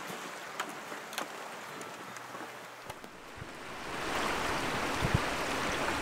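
Steady rush of a small rocky river, swelling about four seconds in as wind gusts buffet the microphone with low thumps.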